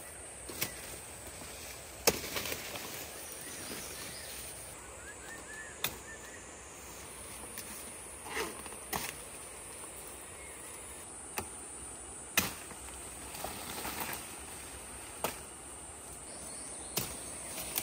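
Machete chopping through wild fruit stalks: sharp knocks at irregular intervals, the loudest about two seconds in and again about twelve seconds in. A steady high insect drone runs underneath.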